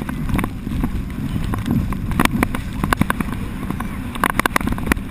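Wind buffeting the microphone and water rushing past a towed inflatable banana boat, broken by many sharp clicks and slaps of water and spray, in clusters about two, three and four seconds in.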